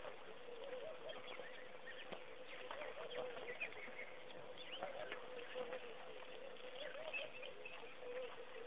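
Faint waterhole ambience: birds chirping, with scattered soft splashes from a baby elephant wading and dipping its trunk in shallow water, over a steady, wavering low drone.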